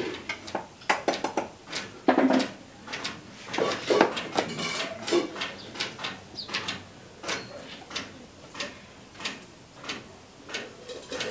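Metal spoon scraping and tapping against the inside of a wooden mortar as thick paste is scraped out, giving a string of short knocks and scrapes. The knocks are irregular at first and later settle into a slow, even tapping.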